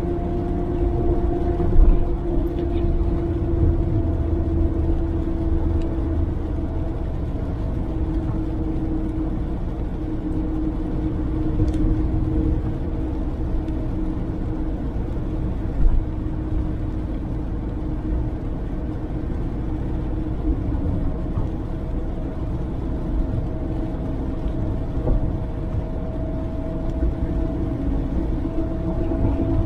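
Suzuki Jimny on the move at a steady cruise: engine drone and road rumble, with a steady tone whose pitch sags a little and climbs back in the last third. Two brief thumps break in, one about two seconds in and one about halfway through.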